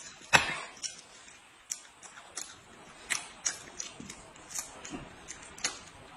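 Cooked shrimp shells crackling and clicking as they are peeled by hand, mixed with chewing. About a dozen sharp clicks, the loudest about half a second in.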